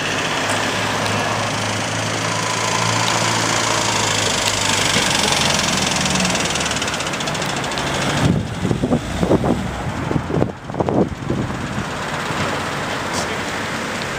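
Street traffic: a motor vehicle engine running with a steady low hum over road noise, broken by a few seconds of irregular low rumbles and thumps about eight seconds in.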